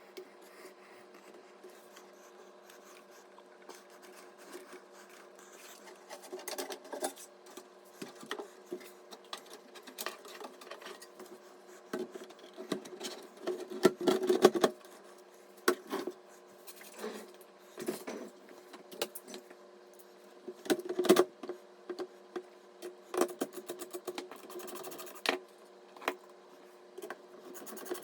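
Irregular clicks, taps and scraping from hands working on computer parts during assembly, over a faint steady hum.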